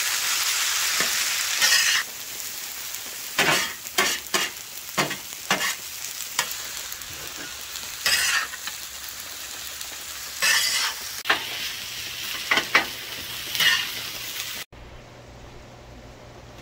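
Rice and salmon sizzling on a flat-top griddle, with two metal spatulas scraping and clacking on the griddle as the food is stirred and turned. The sizzle is loudest in the first couple of seconds and cuts off suddenly near the end, leaving a low hum.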